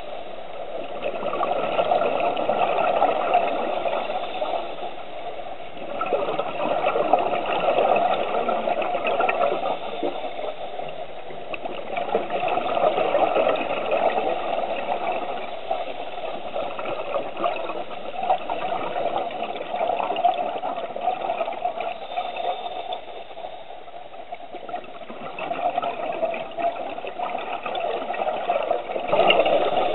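Underwater sound of scuba divers breathing through their regulators, a bubbling, rattling noise of exhaled air that swells and fades every few seconds with the breaths.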